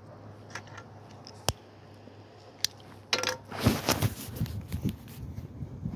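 Footsteps on dry dirt ground with phone handling noise. A few isolated clicks come first, then from about three seconds in a run of scuffs and low thumps, with wind buffeting the microphone.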